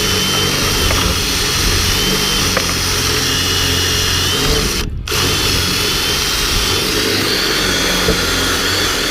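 Power drill running steadily as the bit bores a hole, with a brief stop about halfway through before it starts again.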